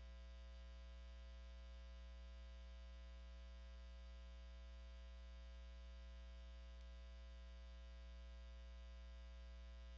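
Near silence with a steady low electrical hum, unchanging throughout.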